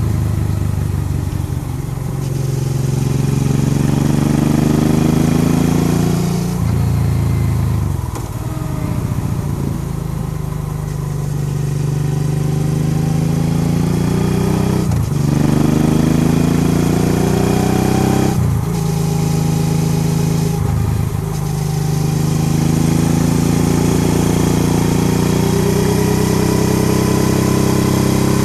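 Honda Transalp XL650V's V-twin engine running under way. Its pitch climbs under throttle and drops sharply four times, as at gear changes or throttle lifts.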